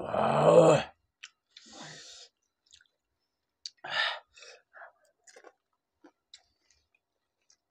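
Eating pani puri: a short voiced sound from one of the eaters at the start, then a breathy hiss, and about four seconds in a louder crunching mouthful as a puri is eaten, followed by soft chewing clicks.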